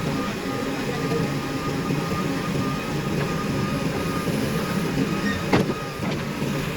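Diesel engines of earth-moving machinery, a backhoe loader and tractors, running steadily, with a sharp knock about five and a half seconds in.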